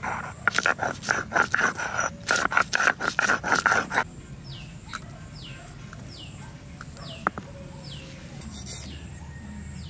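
Stone roller (nora) grinding back and forth on a flat sil grinding stone, grating wet spice paste in quick, rough strokes for about four seconds before it stops. After that a bird's short falling call repeats about every second, and there is a single click partway through.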